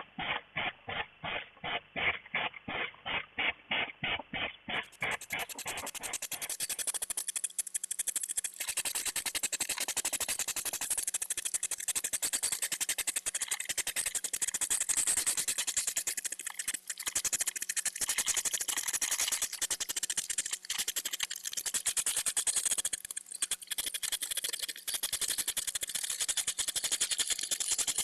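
European hedgehogs huffing and snorting in courtship, a sound made mostly by the female. It starts as a rhythmic puffing about four times a second, then turns into a faster, near-continuous huffing.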